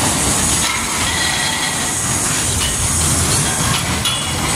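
Spinning wild-mouse roller coaster car running along its steel track: a steady rolling rumble of the wheels, with brief high wheel squeals now and then.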